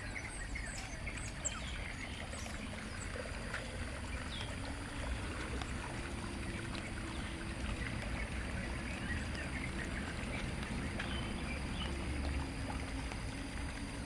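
Shallow water running steadily along a concrete canal, with birds chirping over it in the first few seconds.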